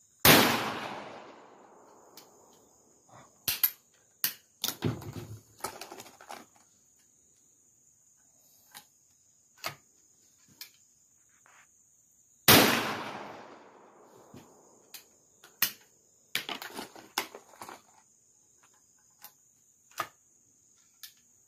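.410 gauge shotgun fired twice, about twelve seconds apart, each shot loud and sharp and trailing off in an echo over about two seconds. Between the shots come short clicks and knocks as the gun is handled and reloaded, over a steady high drone of insects.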